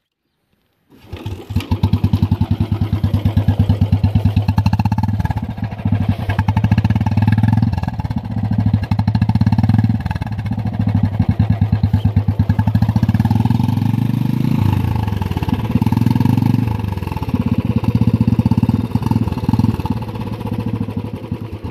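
Royal Enfield Bullet Standard 350's single-cylinder engine running through an aftermarket Omesh Superfine silencer that has two baffles instead of the stock five. It gives a steady, deep dhuk-dhuk thump, neither very loud nor very quiet, and comes in about a second in.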